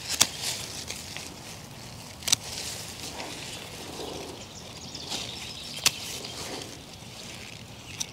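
Hand pruners snipping salvia stems: four sharp clicks a couple of seconds apart, with leaves rustling between the cuts.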